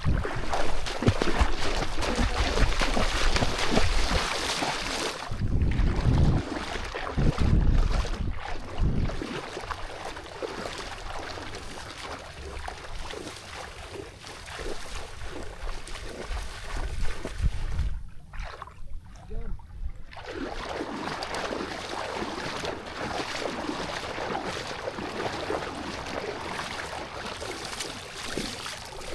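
Water sloshing and splashing in shallows, with wind gusting on the microphone, the rumbling gusts heaviest in the first several seconds.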